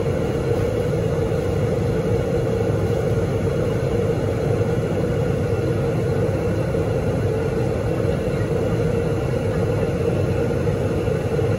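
Steady cabin noise of an airliner in flight: an unbroken rush of air and engine drone with a constant hum.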